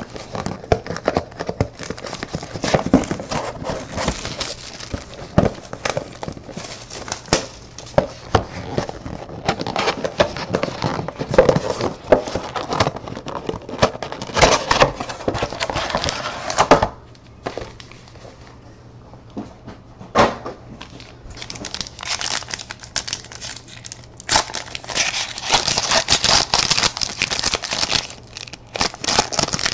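Plastic wrapping on a sealed box of trading cards crinkling and tearing as it is opened by hand. The crinkling drops away for a few seconds a little past halfway, then comes back louder near the end as a card pack is handled.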